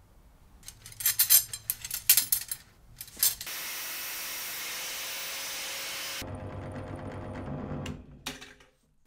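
A run of sharp clicks and knocks, then an angle grinder's cut-off disc cutting through a thin steel rod with a steady hiss for about three seconds. A drill press then runs with a lower hum while drilling into the rod, and a couple of clicks follow near the end.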